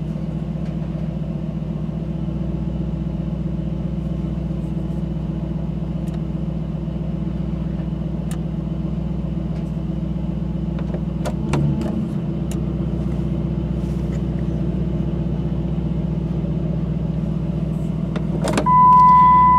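2007 Dodge Ram 1500's 5.7-litre Hemi V8 idling steadily, heard from inside the cab, with a light click about eleven seconds in. Near the end a single steady dashboard warning chime sounds for about a second.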